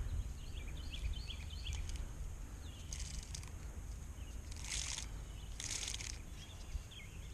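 Outdoor ambience by the water: small birds chirping in short twittering phrases over a steady low rumble, with three brief hissing bursts in the middle.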